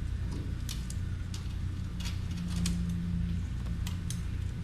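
Steady low background hum, with scattered faint light clicks and scrapes from hands working fiberglass cloth into wet Redgard waterproofing membrane.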